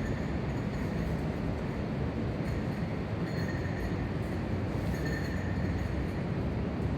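Steady rushing of a mountain river and waterfall, an even noise that never lets up, with faint short high tones coming and going every second or two.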